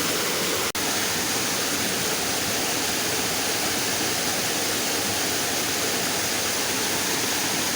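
Steady rush of flowing river water, with a momentary drop-out under a second in.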